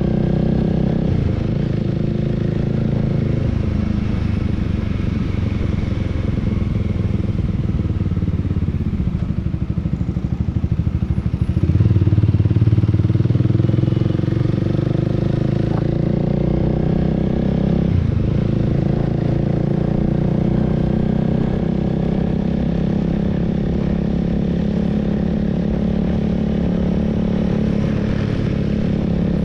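Honda Rebel 300's single-cylinder engine running under a rider on the move, its note rising and falling with the throttle. It eases off to a low pulsing around eight seconds in, then opens up sharply and louder about twelve seconds in, with a brief dip near eighteen seconds.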